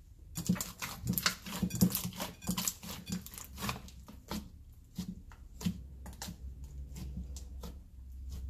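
Green fluffy slime made with toothpaste being squished and kneaded by hand, giving rapid wet clicks and pops. These come thick and fast for the first few seconds, then grow sparser.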